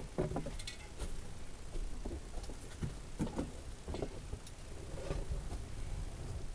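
Plastic vapor barrier crinkling and scuffing under someone's hands and knees as they crawl, in irregular shuffles, over a low steady rumble.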